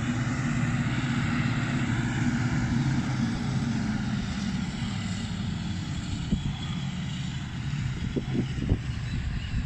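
Diesel engines of a self-propelled forage harvester and a tractor running steadily while lifting grass for silage, a heavy drone that eases slightly as the tractor and trailer pull away. A few short low knocks come in the last few seconds.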